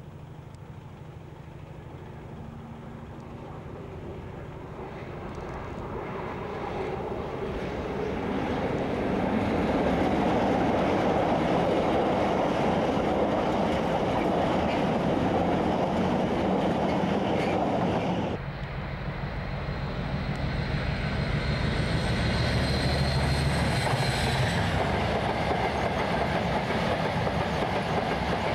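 A diesel freight locomotive hauling container wagons draws near, growing louder over the first ten seconds, then its wagons rumble and clatter past on the rails. About two-thirds of the way through, the sound cuts suddenly to a train of loaded coal hopper wagons rolling by, with a steady low engine note and a thin high whine for a few seconds.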